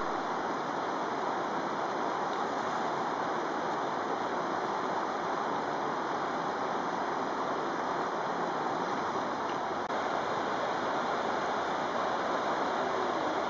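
Steady rushing of a fast river flowing over rocks and through rapids.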